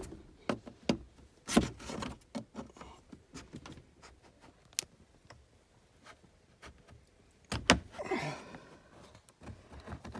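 Plastic clips of a 2016 Acura MDX center console side panel popping loose, with scattered irregular clicks and knocks as a plastic trim tool is worked down the panel, and a stretch of plastic scraping about eight seconds in.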